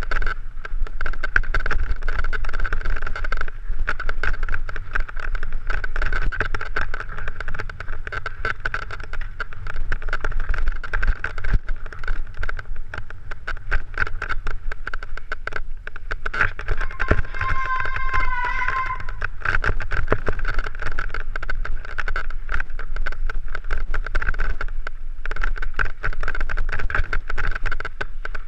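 Mountain bike ridden over a rough stony singletrack: continuous rattling and clatter of the bike over stones, with low wind rumble and a steady high buzz. A brief squeal with a wavering pitch comes about two-thirds of the way through.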